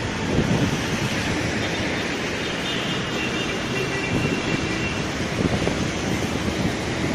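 Sea waves breaking and washing on the shore: a steady rushing noise, with wind on the microphone.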